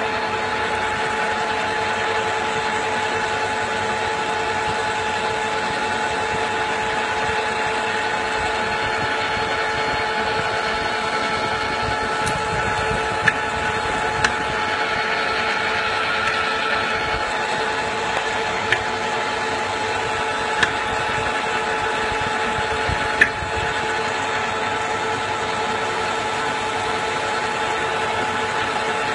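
Metal lathe running steadily with a constant two-note whine, turning a titanium muzzle brake while the tool takes a light cut. A few sharp ticks sound here and there through the middle.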